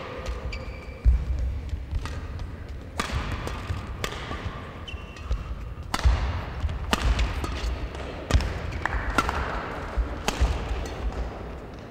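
Badminton singles rally: sharp cracks of rackets striking the shuttlecock, about eight times at intervals of one to two seconds. Between them come short squeaks of shoes on the court floor and thuds of footwork.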